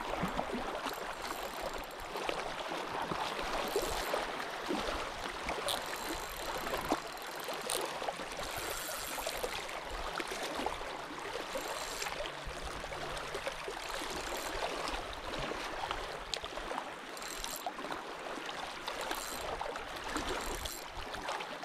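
Steady rushing, trickling water with a few faint clicks.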